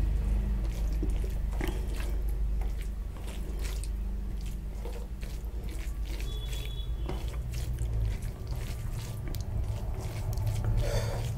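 Fingers squeezing and mixing rice into curry gravy on a steel plate: irregular soft, wet squelches and clicks, over a steady low rumble.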